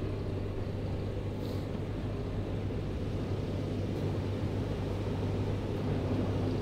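Outdoor traffic ambience: a steady low engine hum under an even background noise.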